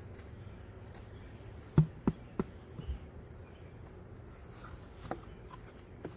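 Honey bees buzzing steadily around an open hive, with a few sharp knocks: three close together about two seconds in, the first the loudest, and another about five seconds in.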